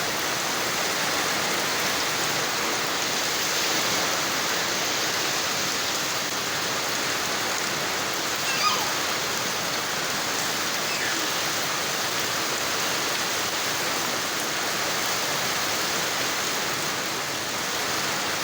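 Steady rain pouring down, an even dense hiss, with one brief louder sound about nine seconds in.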